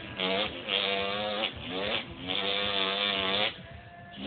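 A man's voice imitating a NASCAR race car engine with his mouth: several drawn-out, buzzing 'vroom' sounds at a steady pitch, the longest held over a second, then a short lull near the end.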